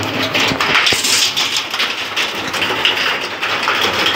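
Heavy rain mixed with hail falling steadily: a continuous hiss of rain with many small ticks of hailstones striking, and a couple of low knocks within the first second.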